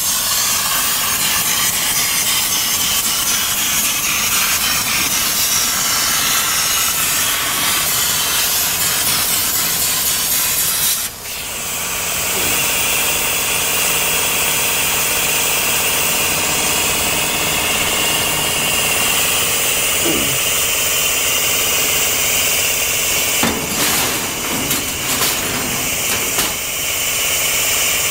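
CNC plasma cutter's torch hissing steadily as it cuts 2 mm galvanized sheet. The hiss drops out briefly about a third of the way through, then comes back steadier with a high whine. A few sharp clicks come near the end.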